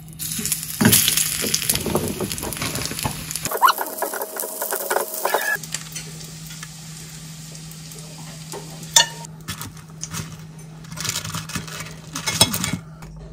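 Food sizzling and crackling in hot oil in a frying pan for the first few seconds, followed by scattered clicks of tongs and utensils against pans and a glass lunchbox as food is moved and packed.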